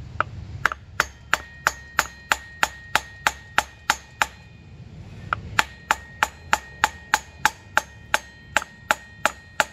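Claw hammer tapping a wooden block held against the end of a Yamaha XV750's rear axle, driving the axle a little farther into the hub. Light, even strikes about three a second in two runs, with a pause of about a second near the middle, and a faint ring under the strikes.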